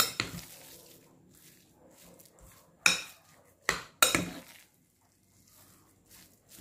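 Metal spoon stirring minced pork in a glass bowl, clinking sharply against the glass several times, two of them close together about four seconds in, with soft stirring in between.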